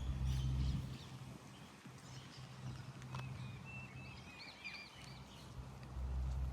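Small birds chirping, a scatter of short, quick, high calls that is busiest past the middle, over a low rumble that swells at the start and again near the end.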